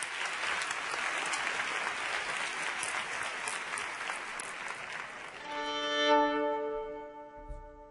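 Audience applause for about five seconds, giving way to a violin and its accompanying band sounding a long held chord that swells and then fades away.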